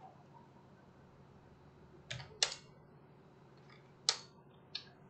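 A few sharp keystrokes on a computer keyboard: two close together a couple of seconds in and two more near the end, over quiet room tone.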